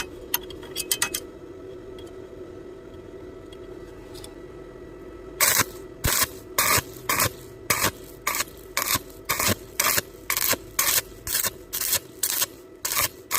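Repeated scraping strokes on metal, about two a second, beginning about five seconds in over a steady low hum, with a few light clicks at the very start.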